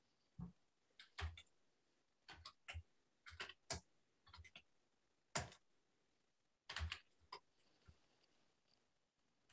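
Faint computer keyboard typing: irregular keystrokes, some single and some in quick short runs.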